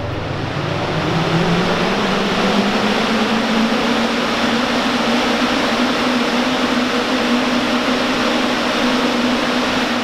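VENTS OVK 2E 300 single-phase 300 mm axial exhaust fan running: its motor hum rises in pitch over the first couple of seconds as it comes up to speed, then holds steady under a loud, even rush of air from the blades.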